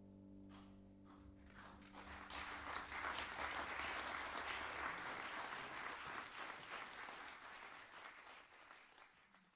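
The band's last held chord dies away, then an audience applauds. The clapping swells for a few seconds and fades out near the end.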